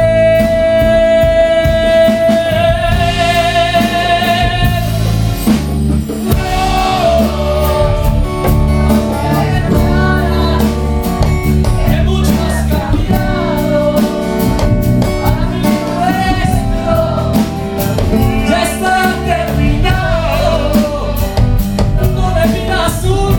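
Male lead singer singing a ballad live with a band of acoustic guitar, keyboard and drum kit. He holds one long wavering note for the first few seconds, then carries on with the melody.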